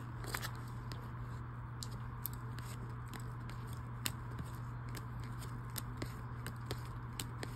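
Foil Goddess Story trading cards being flipped through one by one in gloved hands, each card slid off the stack with a light click, irregularly, over a steady low hum.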